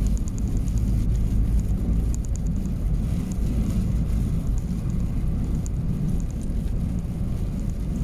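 Steady low rumble of a truck's engine and road noise, heard from inside the cab while driving.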